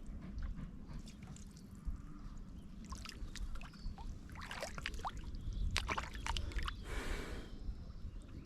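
Water splashing and sloshing at the edge of a pond, in quick crackling bursts through the middle, then one short splash about seven seconds in, over a steady low rumble.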